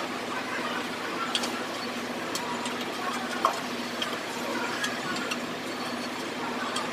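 Light metal clicks and taps from hand work on a car's clutch assembly being fitted, with one sharper click about three and a half seconds in, over a steady low hum.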